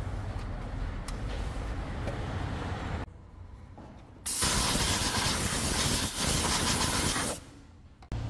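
A loud, steady hiss from a pressurized jet, about three seconds long, starting about four seconds in and cutting off sharply, over a low, steady workshop hum.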